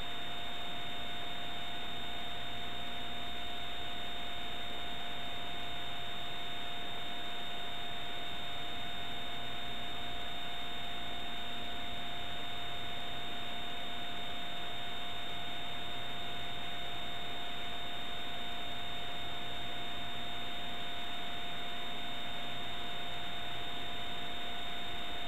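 Steady electronic hiss with two constant tones, one mid-pitched and one high, over a faint low hum: playback noise from a blank stretch of videotape.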